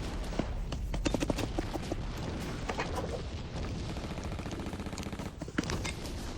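Paintball markers firing in rapid strings of sharp pops. The shots are densest about a second in, with another loud burst near the end.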